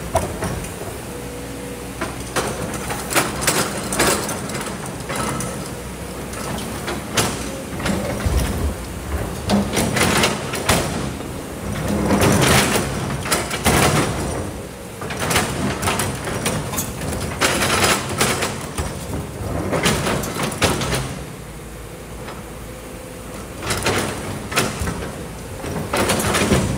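Kobelco crawler excavator's diesel engine running steadily under load, with repeated loud surges of scraping and clatter every few seconds as the bucket digs through sand and stones.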